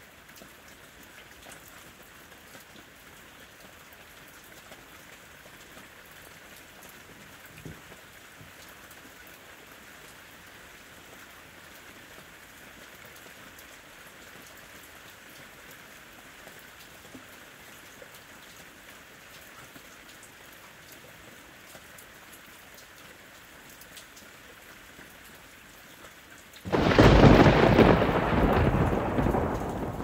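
Steady rain falling. Near the end, a sudden loud thunderclap breaks in and rumbles on, slowly fading.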